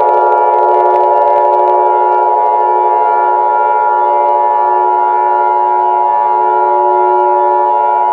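Emergency-alert style alarm: several loud electronic tones held together as one steady chord, with no rise or fall in pitch.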